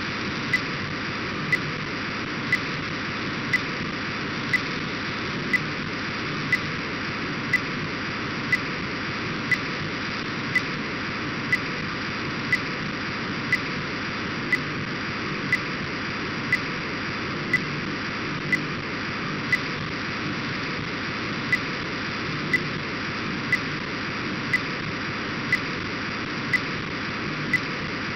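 Demodulated audio from an SDR receiver tuned to an Orbcomm satellite downlink near 137.7 MHz: a steady rushing hiss of the data signal being decoded. A short sharp click repeats about once a second.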